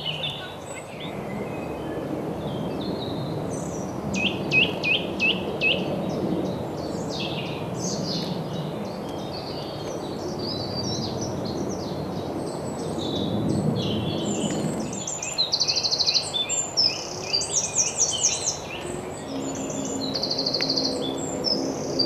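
Woodland birdsong: several birds singing and calling, with series of quick repeated high notes and, in the second half, rapid trills, over a steady low background rumble.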